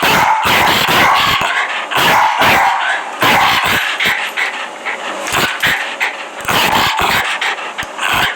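A dog barking again and again, in a quick unbroken series of short barks.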